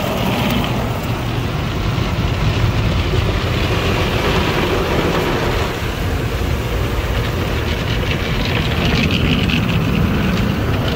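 Automatic tunnel car wash equipment running around a car: a loud, steady rushing noise with a heavy low rumble, swelling a few times.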